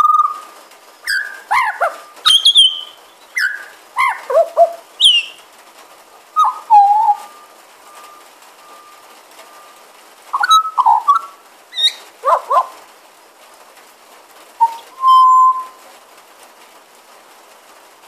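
Pied butcherbird singing close by: a run of varied whistled notes, upward and downward slides and short chirps, then a pause and one held whistle near the end.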